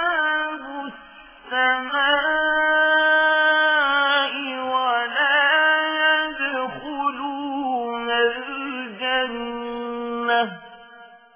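Melodic Quran recitation (tajweed chanting) by a single reciter: long held notes with ornamented turns, a short breath about a second in, then one long phrase that closes about ten and a half seconds in and fades into echo.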